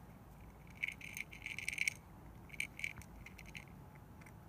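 Orange tabby cat crunching dry kibble from a small dish: two spells of crisp crunching, each about a second long, one near the start and one past the middle.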